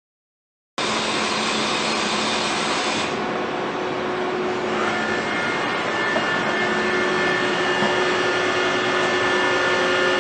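Haas VF-2SS CNC vertical machining center running, a steady mechanical hum and hiss with several steady whining tones. It starts abruptly about a second in, and higher whining tones join about five seconds in.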